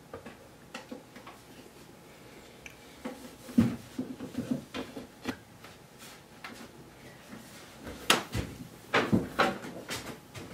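Irregular knocks and clicks of objects being handled, with a sharp knock a few seconds in and a cluster of louder knocks near the end.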